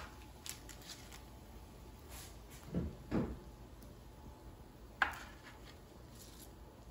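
Metal kitchen tongs handling crispy baked bacon, lifting strips off a parchment-lined baking sheet and setting them on a plate. There are a few light clicks, two dull knocks near the middle and a sharp click about five seconds in.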